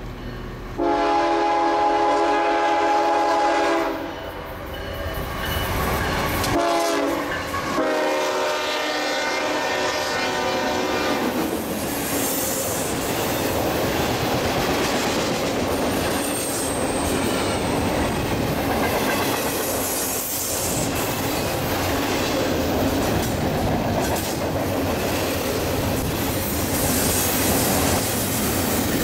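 Horn of a CSX GE ES44AH freight locomotive sounding two long chord blasts, the first about a second in and the second from about six and a half seconds. Then the steady rumble and wheel clatter of a double-stack container train rolling past, with a brief high wheel squeal around sixteen seconds.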